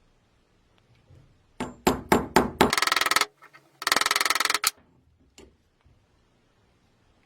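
Four sharp knocks in quick succession, then two short bursts of fast rattling, the second about a second long, and one faint knock after them.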